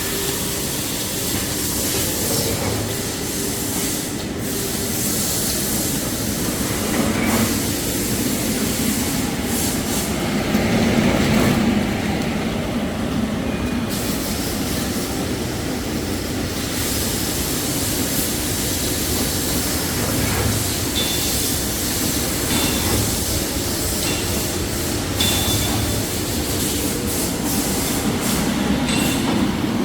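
Toilet tissue paper production line running: steady mechanical noise from the rewinding, embossing, band saw cutting and heat-shrink wrapping machinery, with a few short high-pitched squeaks in the second half.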